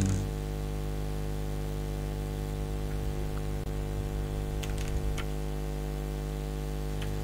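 Steady electrical mains hum, a buzz made of many even tones, with a few faint clicks around the middle.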